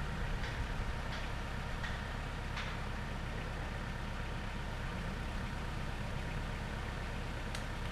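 An engine running steadily at idle, a constant low hum with a few faint ticks over it.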